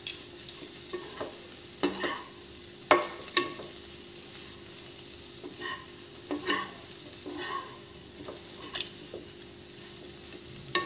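Slotted metal spatula stirring and scraping bitter gourd and onion stir-fry in a non-stick kadai, with a few sharper knocks of the spatula against the pan over a soft frying sizzle.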